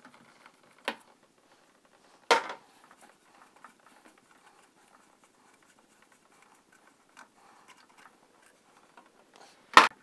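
White plastic sink drain pipes and siphon parts knocking and clicking as they are handled and pulled apart. There is a sharp knock about a second in, a louder one a second or so later, and another loud knock near the end, with faint small clicks between.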